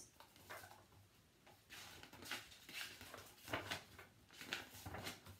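Pages of a large picture book being turned and handled: a quiet start, then a series of soft paper rustles and light handling taps from about two seconds in.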